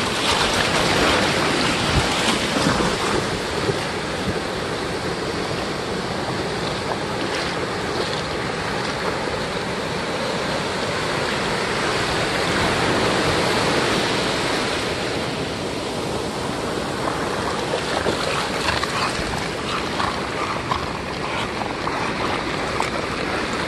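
Ocean surf breaking and washing up the beach in a steady rush, swelling a little about halfway through, with wind buffeting the microphone.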